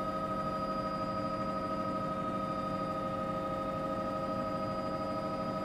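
News helicopter's engine and rotor noise heard inside the cabin: a steady running sound with several constant whining tones over a low rushing noise.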